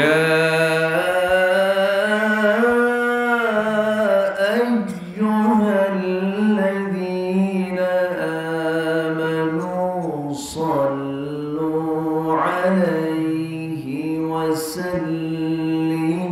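A man's voice chanting a slow melodic line into a microphone, holding long notes and sliding between them, with short breaks about four and ten seconds in.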